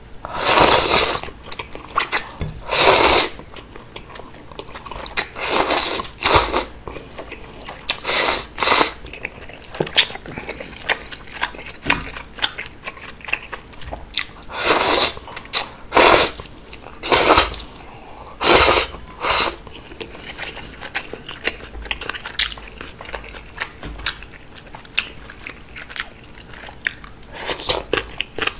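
Close-up slurping of cold udon noodles, about a dozen loud drawn-in slurps of half a second to a second each, with wet chewing and small mouth clicks between them. A quieter stretch of chewing and clicking comes after about 20 seconds, before one last slurp near the end, of a strand of green onion kimchi.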